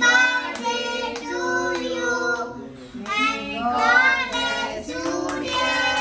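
Family singing a birthday song together, a child's voice the loudest, in steady held notes.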